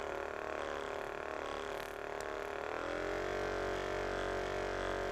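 Roffie RM10 percussion massage gun running with a steady hum; about three seconds in its pitch rises and settles higher as it steps up to a faster speed setting.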